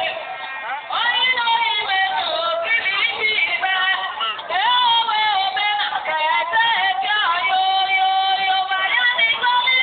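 A cultural troupe singing, with long, wavering held notes and music beneath. The sound is thin and cut off in the highs, as heard through a television broadcast.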